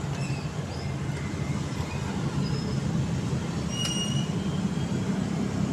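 Yamaha Mio J electric starter motor whirring steadily and turning its reduction gear, while the worn one-way starter clutch slips so the engine itself is not turned over. A faint click about four seconds in.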